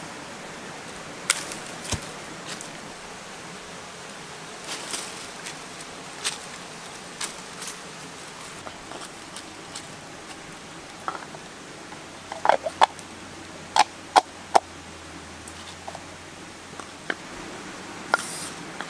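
Pestle knocking in a small clay mortar: irregular sharp knocks, with a quick run of the loudest ones about two-thirds of the way through, over a steady hiss.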